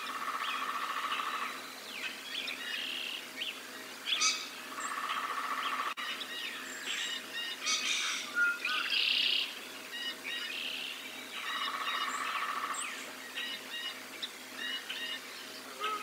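Songbirds singing in a spring morning chorus, several birds overlapping with short chirps and phrases. A lower, evenly pulsed trill comes three times, at the start, about four seconds in and near twelve seconds.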